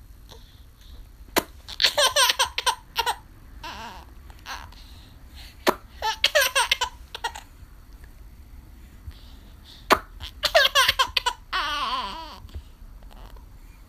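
Three sharp mouth pops, each answered by a burst of a seven-month-old baby's gummy, gurgling laughter; the last laugh is the longest.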